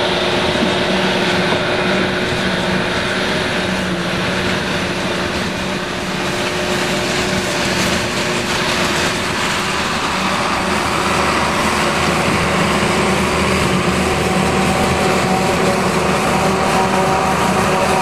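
John Deere 7350 self-propelled forage harvester chopping standing corn for silage, with a tractor pulling the forage wagon alongside: a steady mechanical drone with a few held tones through it.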